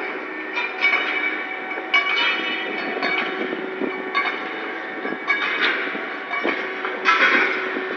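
Steel rails clanking and ringing as they are handled in a ship's hold, with several sharp metallic strikes, over a steady mechanical hum of several held tones.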